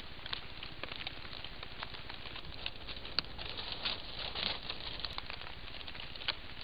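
Steady hiss with scattered, irregular sharp ticks: water drops pattering on forest foliage and on the trail camera's housing.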